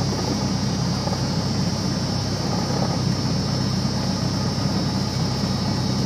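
Single-engine propeller plane's piston engine running steadily at low power while taxiing, heard from inside the cockpit, with a steady high whine over the engine drone.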